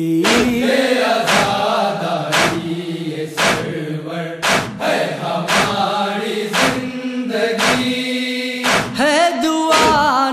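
Male voices in a Shia noha chanting long held tones without words, over a steady beat about once a second kept by matam (chest-beating).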